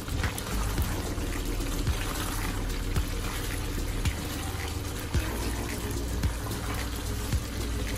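Thick stew simmering and bubbling in a pot while a silicone spatula stirs through it, with frequent small sharp pops.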